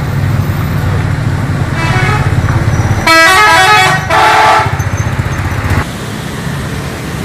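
Coach bus pulling away with its diesel engine rumbling and its multi-tone horn sounding: a faint note about two seconds in, then two loud blasts about three and four seconds in, the first stepping through several pitches. The engine rumble drops away shortly after.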